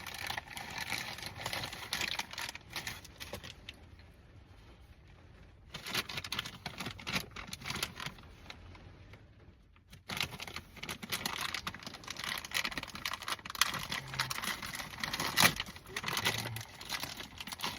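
Irregular light clicking, rattling and rustling of hands handling the mini moto's parts, broken by two quieter pauses near the middle.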